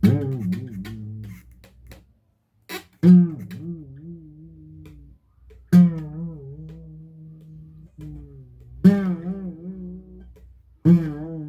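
Broken acoustic guitar with a slack string, plucked five times. Each note wavers in pitch for a moment after the pluck, then holds and fades: a twang meant as a catapult sound effect.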